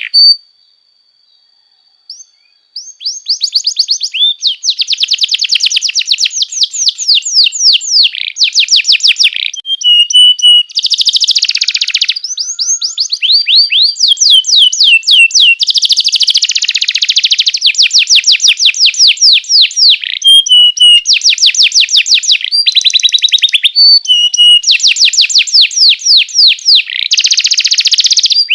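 Domestic canary singing a long song of rapid trills: each phrase is a fast run of repeated notes, switching to a new phrase every second or two. The song starts after a brief lull near the beginning.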